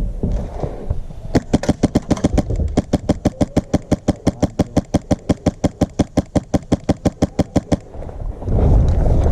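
Airsoft rifle firing a steady string of rapid single shots, about six a second, for some six seconds, each a sharp crack. Near the end a louder low rumbling noise takes over.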